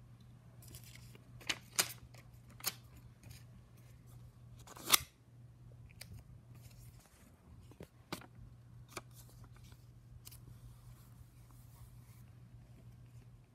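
Paper handling: a die-cut sticky note being peeled from its pad and pressed onto a journal page, with soft rustling and about six sharp clicks and taps, the loudest about five seconds in. A steady low hum runs underneath.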